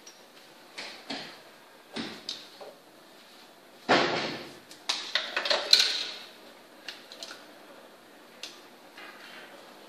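Knocks and clatters of hairdressing tools being handled and set down on a salon trolley. The loudest, a sudden clatter, comes about four seconds in, followed by a cluster of sharp clacks over the next two seconds, with scattered lighter clicks before and after.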